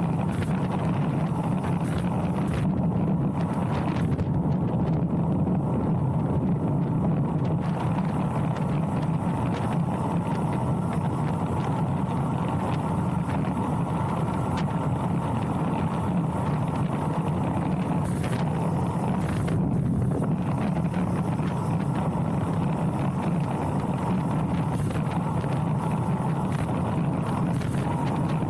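Steady wind rush over an action camera's microphone on a road bike descending at speed, with no break or change in level.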